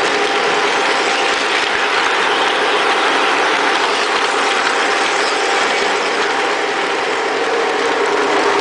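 O-gauge model train running on three-rail track, with a steady rolling clatter of wheels and gear drive picked up close to the rails, over a steady hum.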